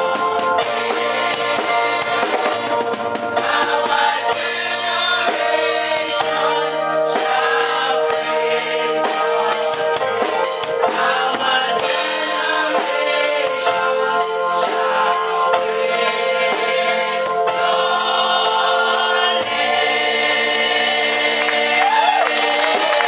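Gospel music: voices singing together over a drum kit and other instruments.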